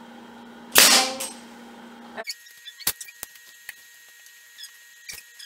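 Pneumatic brad nailer firing a single nail into the plywood box with one loud, sharp crack about a second in. Faint scattered clicks and taps follow.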